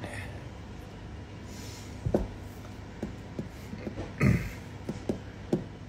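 Room tone with a steady low hum, broken by a few short soft knocks and handling noises, the loudest about four seconds in.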